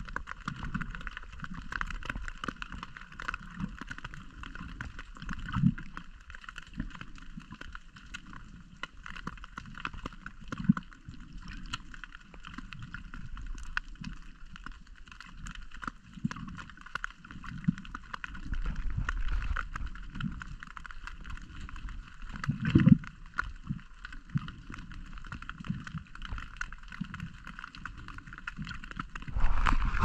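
Muffled underwater sound of water surging and sloshing around a submerged camera, with irregular low thuds and a louder knock about 23 seconds in.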